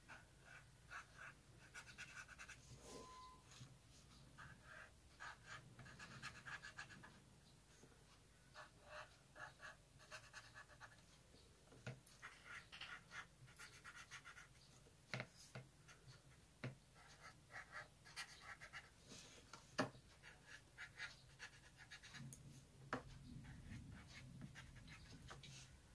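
Felt-tip marker drawing on paper in many short, faint strokes.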